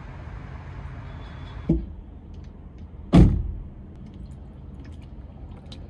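Steady traffic hum, a short thump about two seconds in, then a loud, heavy thunk of a car body panel being slammed shut a little after three seconds.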